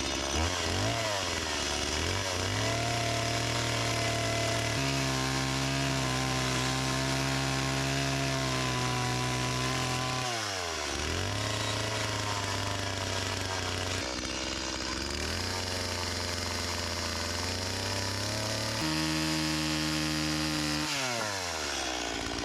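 Chainsaw running at high revs, likely cutting wood. Its engine pitch shifts with load, and twice drops sharply as the throttle is let off, about ten seconds in and again near the end, then picks back up.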